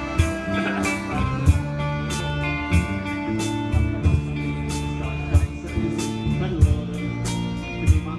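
Live rock band playing: electric guitars and bass over a drum kit, with a sharp drum hit about every second and a quarter.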